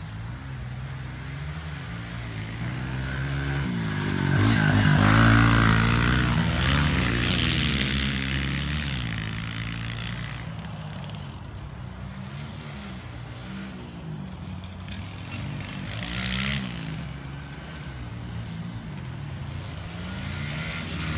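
Small single-cylinder pit bike engine revving up and down as it laps a dirt track. It grows loudest as the bike passes close about five seconds in, then fades, with a smaller swell later on.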